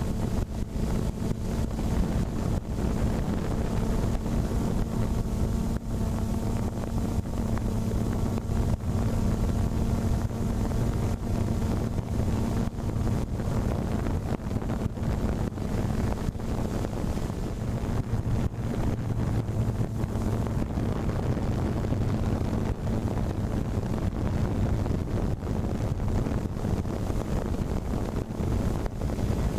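A steady motor hum holding one pitch throughout, with wind rumbling on the microphone.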